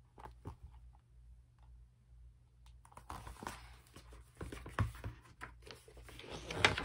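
Pages of a picture book being turned and handled: paper rustling with small taps and knocks. It starts about three seconds in and is loudest near the end.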